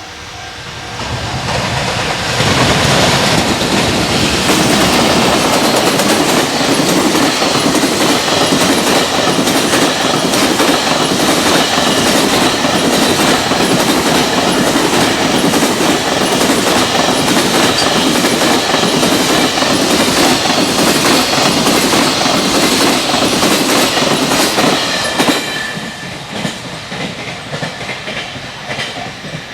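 Freight train passing at speed, its wheels clattering rhythmically over the rail joints. It comes up about two seconds in, stays loud and steady, and drops away near the end as the last wagons pass.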